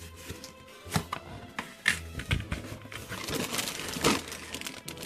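Clear plastic bags of toy parts crinkling and rustling as they are handled and pulled out of a cardboard box, with several sharp handling knocks in between.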